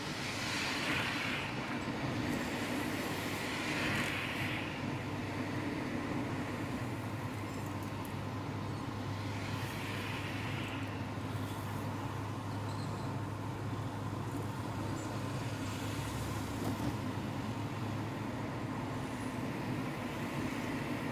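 Steady engine hum and tyre and road noise heard from inside a moving car, with a few brief swells of hiss.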